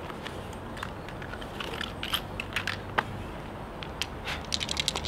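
Dice rattling in a hand and tumbling onto asphalt in a street dice game: scattered sharp clicks, a single sharp knock about three seconds in, and a quick run of clicks near the end.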